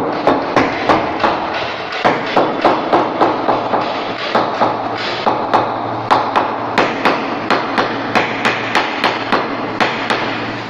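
A hammer tapping again and again on a granite countertop slab, about three quick strikes a second with a couple of short pauses, as the stone is being set onto the counter.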